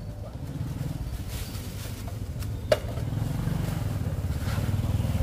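Small engine running at a low, even beat, growing louder near the end, with one sharp click a little past the middle.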